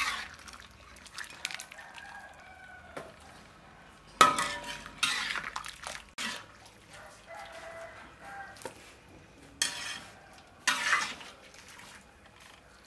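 Wire skimmer clanking and scraping against a metal wok as boiled chicken blood curds are scooped out of the hot water. There are several sharp clatters a few seconds apart, each ringing on briefly.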